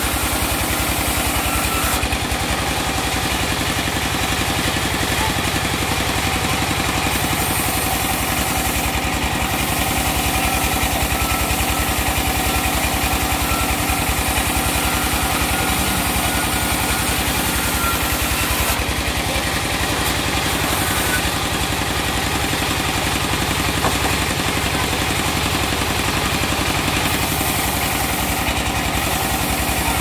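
Large band sawmill running steadily as its blade rips a log lengthwise into planks, a constant engine-like drone from the machine.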